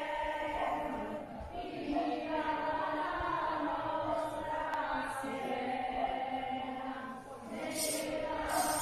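A group of voices singing together in chorus, a slow song in long held notes, with short breaks between phrases about a second and a half in and again near the end.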